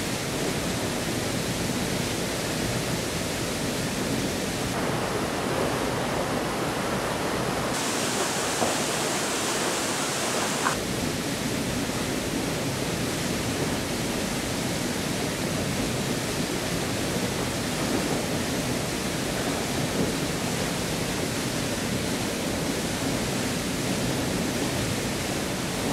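Waterfall plunging into a rock gorge pool: a loud, steady rush of water. Its tone shifts abruptly a few times, about 5, 8 and 11 seconds in, as the recording switches between microphones.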